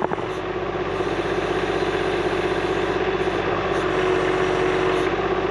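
John Deere 1025R sub-compact tractor's three-cylinder diesel engine running steadily, with a steady whine that grows a little stronger after the middle.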